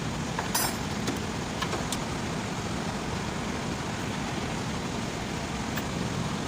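Steady background noise with no distinct pitch, with a few short, sharp clicks scattered through it.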